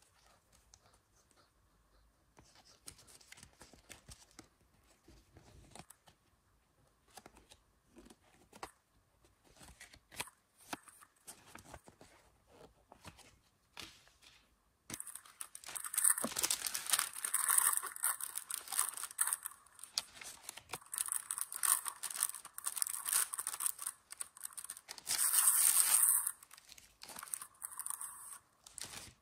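Small plastic blind-bag packet from a toy surprise capsule being handled with light taps and rustles, then crinkled and torn open by hand from about halfway, loud and continuous, with one loudest tearing burst near the end.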